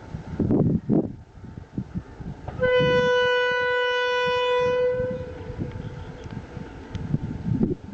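Diesel locomotive air horn, on Sri Lanka Railways Class M11 958, sounding one long blast of about two and a half seconds at a single steady pitch. Gusty wind rumbles on the microphone before and after it.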